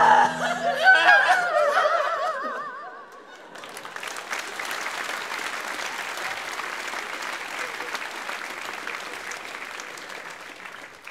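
Audience applauding and cheering after a stage sketch, starting about three and a half seconds in and slowly fading. Before it, a voice holds a wavering note that ends about three seconds in.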